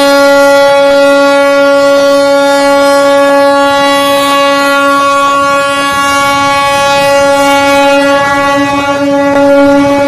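Ship's horn sounding one long, steady, unbroken blast.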